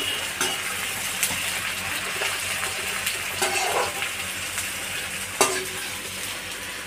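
Food sizzling in hot oil in a cooking pot while it is stirred with a spoon. A few sharp clicks of the spoon against the pot stand out, the loudest about five and a half seconds in.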